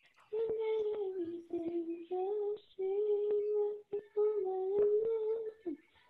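A high voice singing a melody in long held notes, phrase after phrase with short breaths between, heard through a video call's narrow-band audio.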